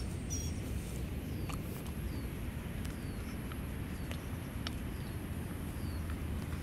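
Dog eating dry kibble from a stainless steel bowl: scattered faint crunches and clicks of kibble against the steel, over a steady low rumble.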